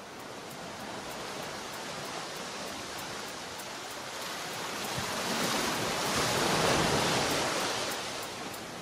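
Ocean surf: waves washing onto a sandy beach, a steady rush that swells to its loudest about six seconds in and then eases off.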